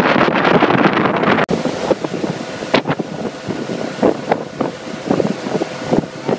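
Wind buffeting the microphone on a moving speedboat. About a second and a half in it drops suddenly, leaving the boat's motor running steadily with scattered short knocks over the water noise.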